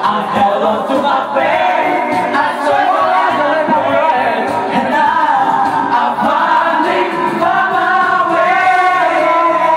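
Several men singing together into handheld microphones over a karaoke backing track, their voices loud and amplified.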